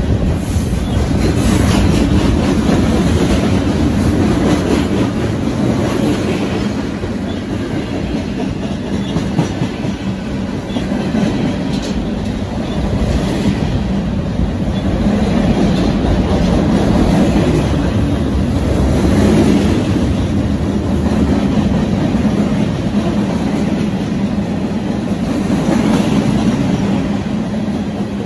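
Mixed freight train rolling past at close range: a steady rumble of steel wheels on the rails as the boxcars, autorack and tank cars go by.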